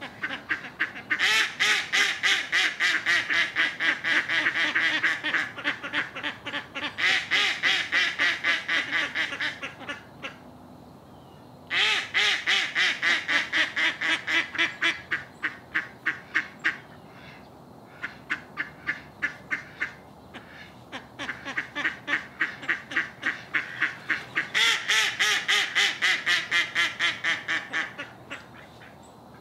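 Ducks quacking loudly in long rapid runs of several quacks a second, in three bouts with short lulls between.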